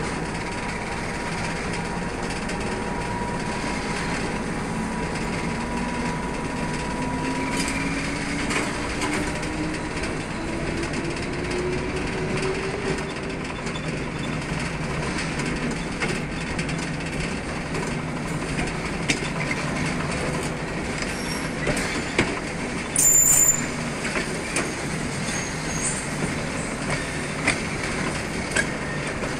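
TGM6V diesel-hydraulic shunting locomotive rolling along a siding. The diesel engine drones steadily, with a tone that climbs slowly in pitch for several seconds. The wheels clack at rail joints, and about two-thirds of the way through there is a brief, loud, high wheel squeal.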